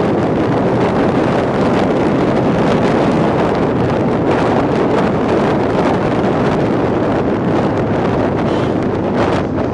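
Wind buffeting the microphone of a camera on a moving vehicle at road speed: a loud, steady rushing roar, with vehicle and road noise beneath it.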